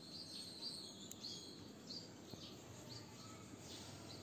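Faint background birds chirping: short, high chirps repeating every half second or so over a low hiss.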